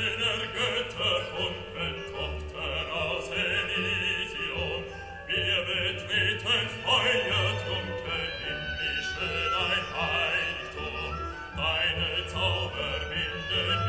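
Classical, opera-style music with singing, played through a Sonos One smart speaker and picked up by a recorder a few feet from it.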